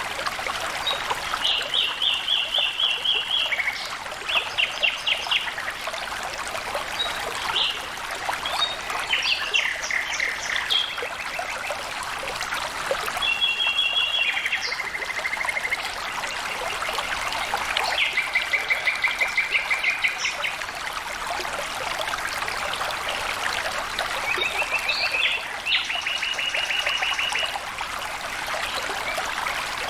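Stream water trickling and flowing steadily, with birds singing over it in short, rapid trills of evenly repeated notes that recur every few seconds.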